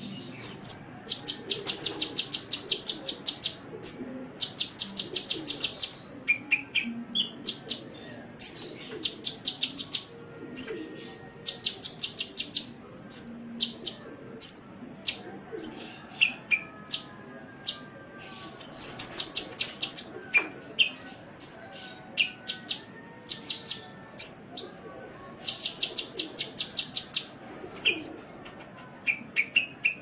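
Small songbird sold in Indonesian bird-keeping as 'kolibri' (a sunbird), singing in a busy, continuous song. Its song has repeated fast, high trills about a second long, mixed with single sharp chirps and short upswept whistles.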